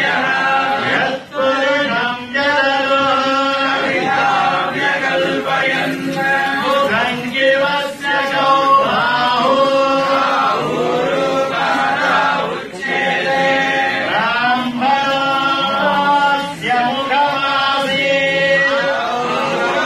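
Male voices chanting a hymn together in unison, in long held phrases broken by short pauses for breath.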